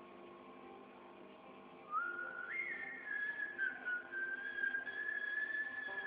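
A person whistling: about two seconds in, a single clear note slides up, then is held with slight wavers in pitch, over a faint steady hum.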